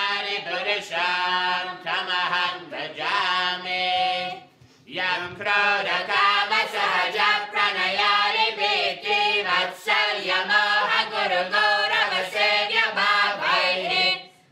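Voices singing a devotional chant into a microphone, long melodic phrases with a short break about four and a half seconds in before a longer sung passage.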